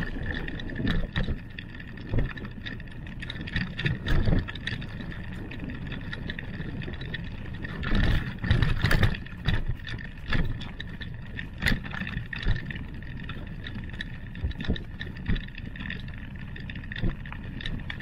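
Bicycle rolling along a gravel road: a continuous low rumble of tyres on gravel and wind on the microphone, broken by frequent short knocks and rattles from the bike going over bumps.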